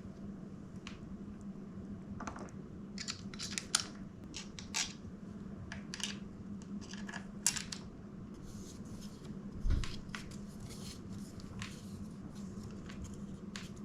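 Handlebar being fitted to a mountain bike's stem: scattered small metal clicks, taps and short scrapes of parts and tools being handled, with one dull thump near the end, over a steady low hum.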